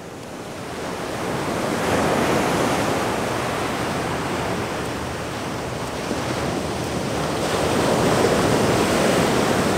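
Ocean surf breaking on a sandy beach: a steady wash of waves that swells about two seconds in and again near the end.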